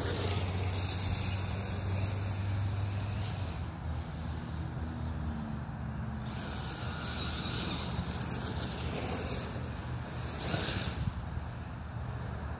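Electric RC buggy (Losi DBXL-E 2.0 with a Castle Mamba XLX and 2028 sensored brushless motor) running across grass, its motor whine rising and falling in pitch as the throttle changes. The loudest whine sweep comes about ten seconds in.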